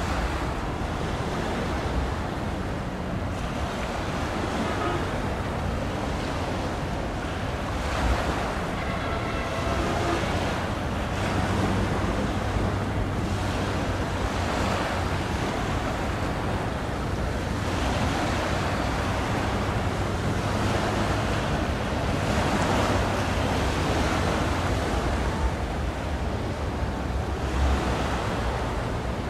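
Steady wash of sea water with wind buffeting the microphone, over a faint low steady hum.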